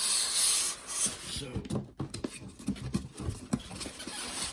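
Packing being handled and pulled out of a cardboard box: a loud rubbing, rustling scrape in the first second, then scattered light knocks and scrapes.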